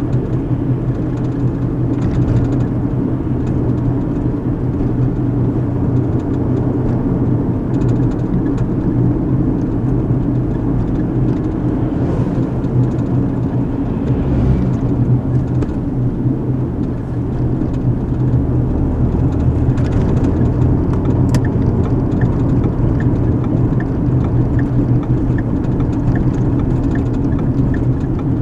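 Steady car cabin rumble of engine and tyres on the road while driving. About three-quarters of the way through, a sharp click is followed by even ticking about one and a half times a second, like a turn-signal indicator switched on.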